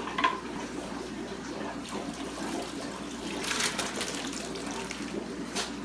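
Water from a plastic fish shipping bag poured through a hand net into a bucket of water, splashing most strongly about three and a half seconds in, with short sharp handling sounds at the start and near the end.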